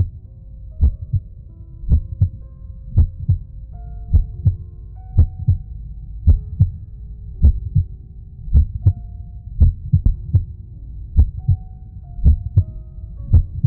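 Heartbeat sound: low double thumps, lub-dub, repeating steadily a little under once a second, over soft held tones that shift in pitch.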